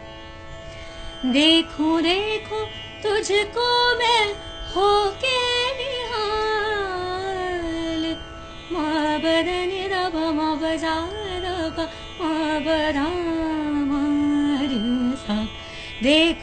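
A woman singing a semi-classical Indian song in long ornamented phrases with sliding pitch glides, over a steady drone. The voice comes in after about a second.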